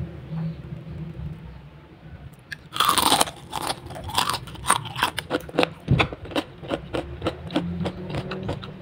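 Crunchy bite into a crisp, flaky battered fried sausage skewer about three seconds in, followed by repeated irregular crunching as it is chewed.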